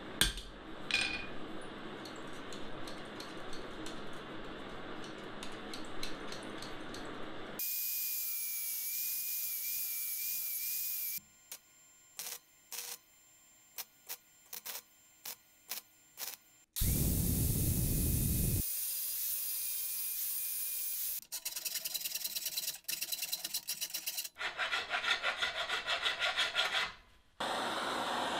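A string of metalworking sounds on steel farrier's nippers: a few sharp hammer taps on the anvil, short crackling bursts of a flux-core welder at the jaw, and fast rhythmic rasping strokes. Near the end an oxy-acetylene torch flame hisses steadily as it preheats the oil quench tank.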